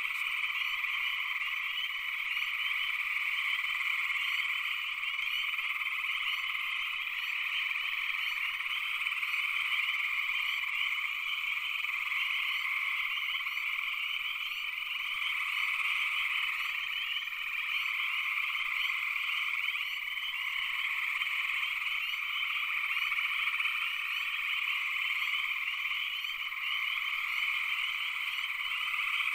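Frogs calling in a dense, steady night chorus, many voices overlapping into one continuous high-pitched mass with a lower layer of calls beneath it.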